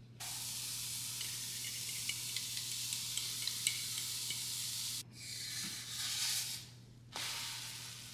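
Pancake batter sizzling as it is poured into a hot frying pan on medium heat. The steady sizzle starts suddenly, with small crackles through it, and breaks off abruptly twice before it returns.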